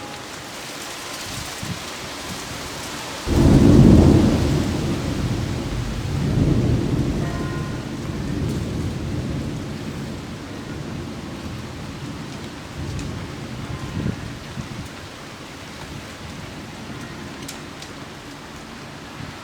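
Heavy thunderstorm rain falling steadily, broken about three seconds in by a sudden loud thunderclap that rolls on as rumbling thunder, swelling again a few times and dying away after about ten seconds.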